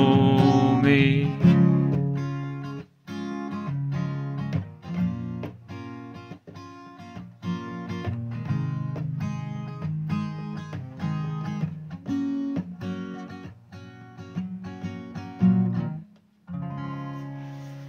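Acoustic guitar strumming the closing chords of a song, with a few brief breaks. It ends on a final chord that is left to ring and fade away.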